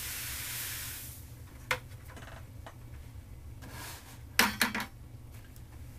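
Crushed malt pouring from a bucket into the strike water of a cooler mash tun, a steady hiss that stops about a second in. A few light knocks follow, with a louder clatter a little after four seconds as the bucket and stirring paddle are handled.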